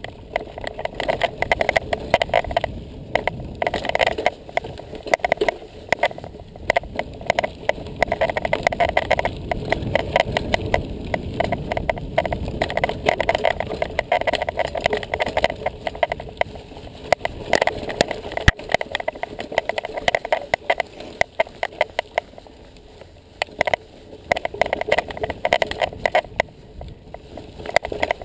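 Mountain bike ridden over rough dirt trail: continuous rattling and clattering from the bike as it bounces over rocks and roots, with tyre noise on the dirt. There is a single sharp knock a little past halfway, and a quieter stretch shortly after.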